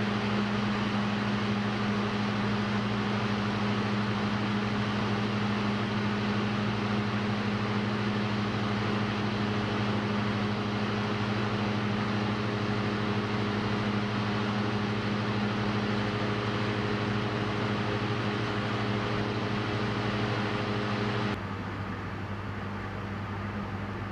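Diesel engine and propeller of a Cessna 172 droning steadily, heard from inside the cockpit. About three seconds before the end the drone drops suddenly in level and slightly in pitch.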